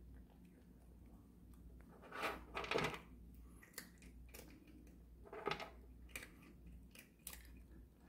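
A cat eating crunchy pillow-shaped treats from the plastic tray of an automatic feeder: irregular crunches and light clicks, the loudest a little after two seconds in and again about halfway through.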